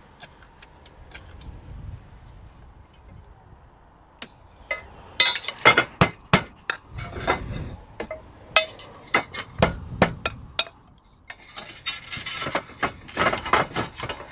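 Roof tiles clinking and knocking against one another and the metal flashing as they are laid by hand. Sharp, irregular clicks start about five seconds in and turn into a busier clatter with scraping near the end.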